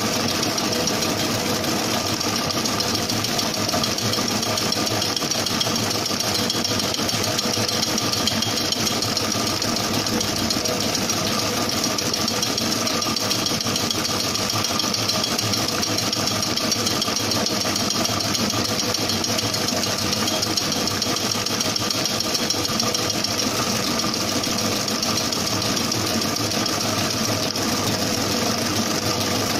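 Commercial planetary mixer running steadily at speed, its motor and gearing giving a constant hum and whine as the beater whips sponge cake batter in a stainless steel bowl.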